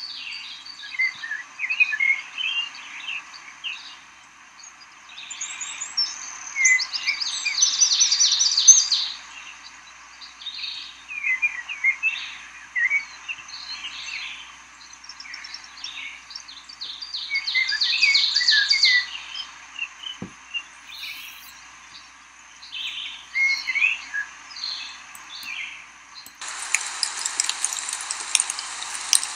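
A songbird singing repeated phrases a few seconds apart, each made of scattered chirps ending in a fast, high trill. Near the end a steady hiss sets in.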